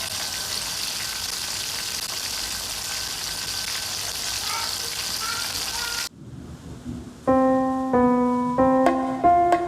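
A steady hiss with a few faint high chirps, cut off abruptly about six seconds in. After a short pause, solo piano music begins.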